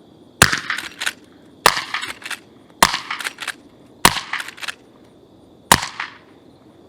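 Five rifle shots in quick succession, roughly a second and a quarter apart, each followed by a short run of smaller clicks and echo.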